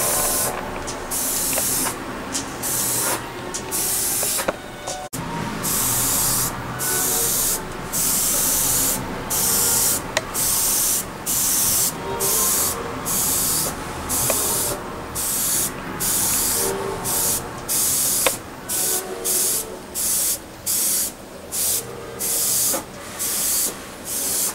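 Sata Graph3 0.2 mm airbrush spraying in repeated bursts of hiss as the trigger is pressed and released. The bursts grow shorter and more frequent in the second half, about one a second.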